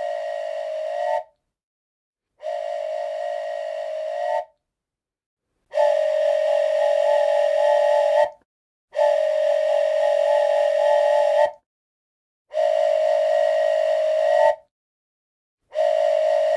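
Playback of a mid-side test recording: a sustained whistle-like chord of a few close tones over a breathy hiss. It comes as six separate blasts of about two seconds each, each swelling slightly just before it cuts off. The first two blasts, from the raw undecoded file, are quieter than the later decoded ones.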